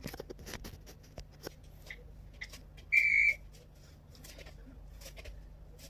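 A single short, high whistle-like beep about three seconds in, the workout timer's signal that the chair-squat interval has begun. Faint scattered taps and rustles of movement around it.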